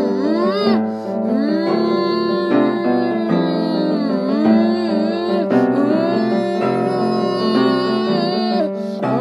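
Background music: a melody with sliding, wavering notes over steady low notes.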